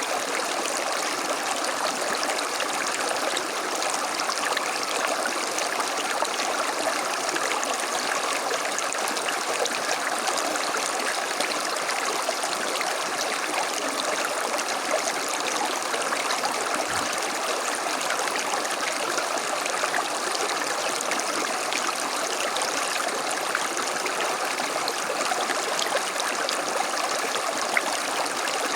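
A creek running over stones: a steady, even rush and babble of flowing water.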